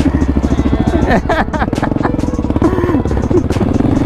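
Small motorcycle engine running as the bike rides along, its pitch falling and rising with the throttle and settling to a steady note near the end.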